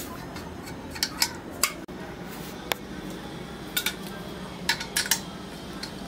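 Metal hand tools clinking and knocking, about eight short sharp clinks at irregular intervals, over a low steady hum.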